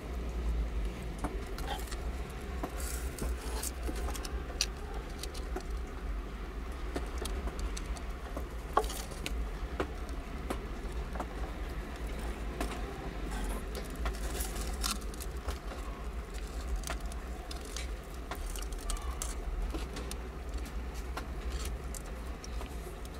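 Newborn kittens nursing on their tabby mother: small scattered suckling clicks and rustles of fur over a steady low rumble.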